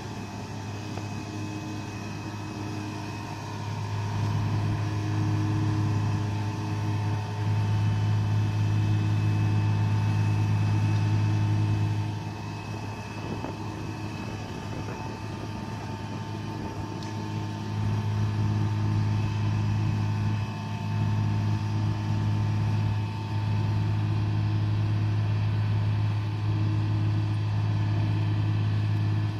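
Mobile crane's truck engine running steadily under load while hoisting a mobile home, its revs rising twice for long stretches as the crane works, with a thin steady whine above the drone.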